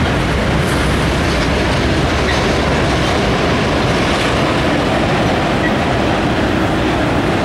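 CSX freight train passing close by: a diesel locomotive goes by, then autorack cars roll past on an elevated track with a steady, loud rumble of wheels on rail.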